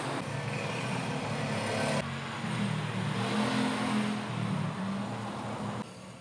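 An engine running with its pitch rising and falling over a steady hiss. It drops away abruptly near the end.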